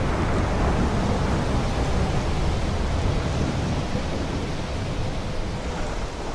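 Thunderstorm-like rumble and noise from an intro sound effect, heavy in the low end, with a faint steady tone running through it.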